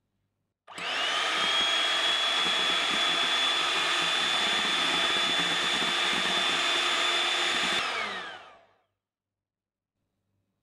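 Electric hand mixer beating cake batter. The motor comes on with a quick rising whine about a second in, runs at a steady high whine for about seven seconds, then is switched off and winds down with a falling whine.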